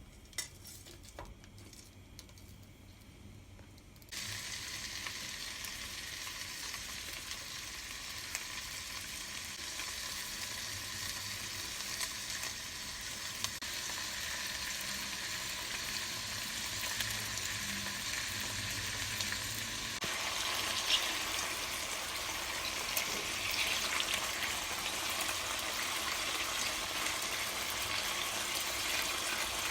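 Food frying in hot oil. The sizzle starts suddenly about four seconds in, after a few light clicks, then runs steadily and grows a little louder and brighter near two-thirds of the way through.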